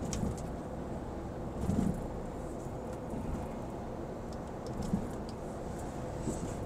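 Steady engine and road hum inside the cab of a Mercedes-Benz truck cruising on the highway, with a faint steady drone. There are a couple of soft bumps, one about two seconds in and another about five seconds in.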